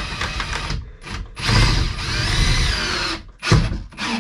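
Cordless drill driving screws through wooden blocks into a copper pipe: the motor runs briefly, stops, then runs again for about two seconds with its pitch rising and falling as the trigger is worked. Two short knocks near the end.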